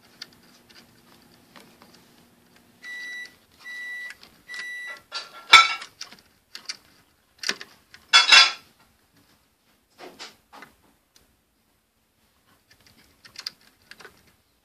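Digital alarm clock beeping three times, each beep about half a second long, followed by handling noises: a sharp knock, a short rustling clatter and scattered clicks.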